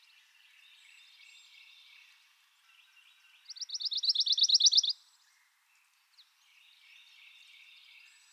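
A pine warbler singing one loud, even trill of about a dozen quick notes, lasting about a second and a half, a few seconds in. Fainter trills sound before and after it.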